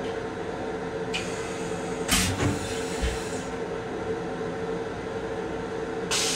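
Interior noise of a Metro-North M7 railcar heard from its restroom: a steady hum with a constant mid-pitched tone. Short bursts of hiss break in about two seconds in and again near the end, the first followed by a low thud.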